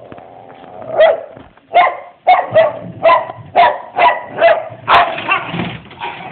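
A dog barking in a quick series of about nine barks, starting about a second in and tailing off near the end.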